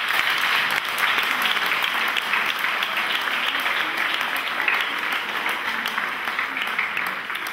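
Applause: many people clapping together in a dense, steady clatter that eases slightly near the end.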